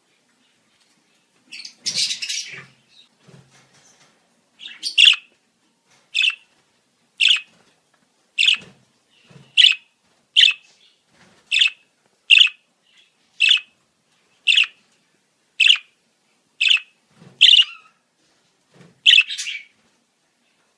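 Budgerigar calling: a short burst of chatter about two seconds in, then a long run of sharp, high chirps, about one a second, each dropping in pitch at its tail.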